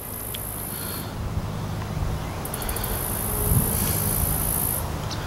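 Insects buzzing at a high pitch in two long spells, pausing about a second in and stopping near the end, over a steady low rumble.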